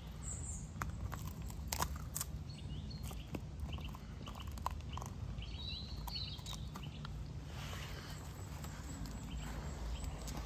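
Footsteps on a walk, with irregular soft clicks and crunches, over a steady low outdoor rumble. Birds chirp briefly and faintly in the middle.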